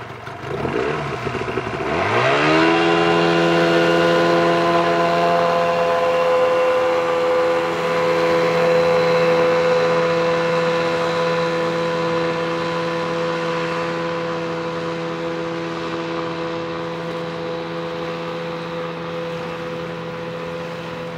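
Mariner 25/20 jet outboard, fitted with a stainless steel impeller, revving up hard from low speed in the first couple of seconds as the boat accelerates, then holding a steady high-pitched drone at full throttle, slowly fading as the boat speeds away.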